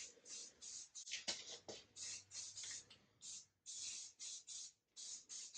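Aerosol spray can of primer hissing in a string of short bursts, about a dozen quick sprays with brief gaps between them, as the nozzle is pressed and released.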